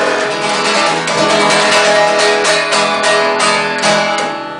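Steel-string acoustic guitar strummed briskly, about three strokes a second, over a plucked upright double bass: an instrumental stretch with no singing.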